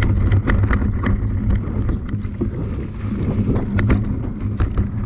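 A bike ridden down a rough dirt trail: a steady rumble with wind on the microphone and frequent sharp rattling knocks as it runs over the bumps.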